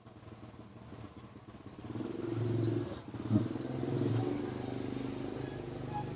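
An engine running steadily, growing louder about two seconds in and then holding, with one short knock just past three seconds.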